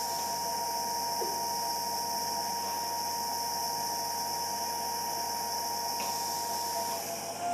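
Electrosurgical unit sounding its steady, single-pitch activation tone while the cautery pencil is used on a small adhesion at the diaphragm, over a steady hiss; the tone cuts off about seven seconds in.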